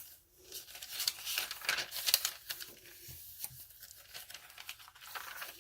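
Paper rustling and crinkling as the pages, cards and tags of a handmade paper journal are turned and handled, with many short, scattered crackles.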